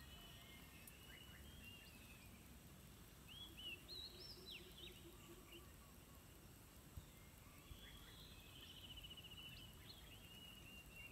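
Faint bird chirps over quiet open-air background: a cluster of short rising and falling chirps about a third of the way in, and a quick trill near the end.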